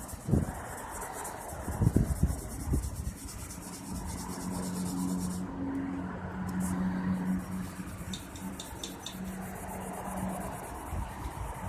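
Hand wet sanding of a chrome-plated steel handle with 2000-grit sandpaper: quick, repeated rubbing strokes of wet paper on metal, with a couple of knocks near the start. A low steady hum runs underneath for several seconds in the middle.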